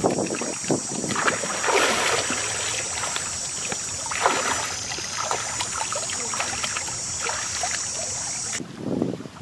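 Water sloshing and splashing as people wade through a shallow muddy river, in a few uneven surges, over a steady high-pitched buzz that cuts off abruptly near the end.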